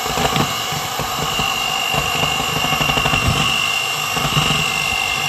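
Electric hand mixer running with a steady high-pitched whine, its beaters whisking cake batter.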